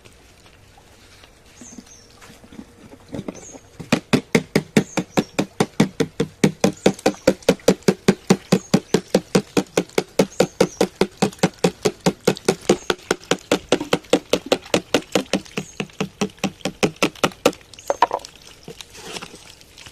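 Rapid, even slapping or tapping, about four to five strokes a second, starting about four seconds in and stopping a couple of seconds before the end.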